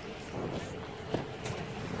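Vehicle driving on a wet road: steady tyre and road noise with a faint steady hum underneath. A sharp click sounds just after a second in.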